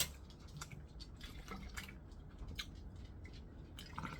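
Soft, irregular wet clicks of someone chewing food close to the microphone.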